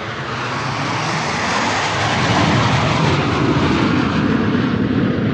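Jet airliner engines at takeoff thrust, a dense rushing noise that swells over the first two seconds or so and then holds steady and loud.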